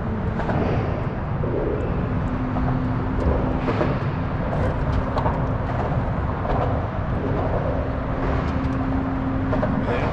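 A steady motor drone over a constant low rumble, with a few faint clicks.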